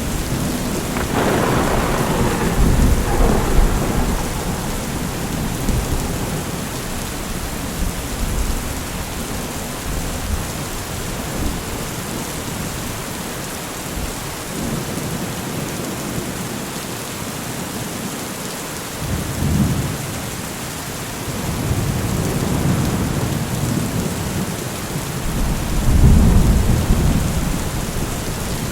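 Steady rain with rolling thunder: rumbles swell in about a second in, again around two-thirds of the way through, and most strongly near the end.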